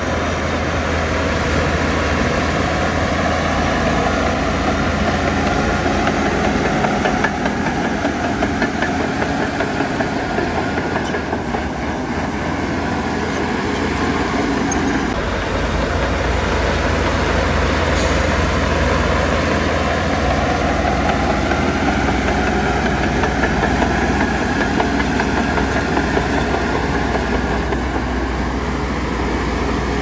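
Bulldozer's heavy diesel engine running steadily under load, its pitch slowly rising and falling as it works.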